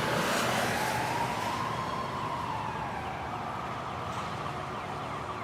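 A single siren-like wail, rising and then slowly falling, over a steady rushing noise.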